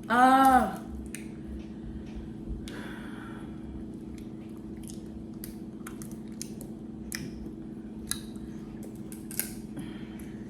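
A short voiced sound at the start, a single rising-then-falling hum, then scattered small clicks and squishes of people eating a seafood boil, picking at crab and chewing, over a steady low hum.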